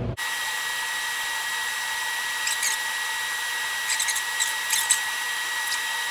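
Instron tensile testing machine pulling paracord through a 3D-printed pulley, its audio sped up 16 times: a steady high whine, with a few short faint crackles.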